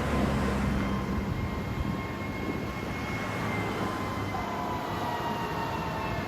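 Ocean surf washing steadily, swelling a little in the first second, with a drone of several steady tones slowly falling in pitch over it.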